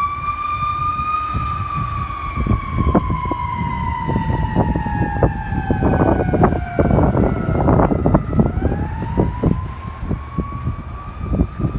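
Fire truck siren on a slow wail. Its pitch sinks steadily for several seconds, breaks off about seven seconds in, and then climbs back up, over the low rumble of the truck's engine and road noise.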